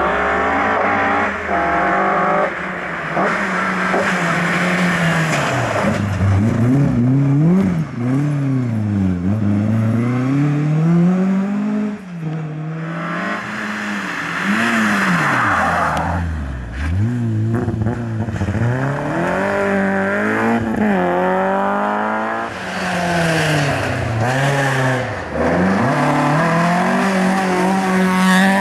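Rally cars, among them a Mk2 Ford Escort and a Peugeot, driven flat out one after another. Their engines rev hard, the pitch climbing and then dropping sharply over and over with each gear change and each lift for a corner.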